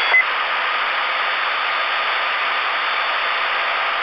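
CB radio receiver hissing with steady static on an open channel after the other station's carrier drops. A short beep sounds right at the start.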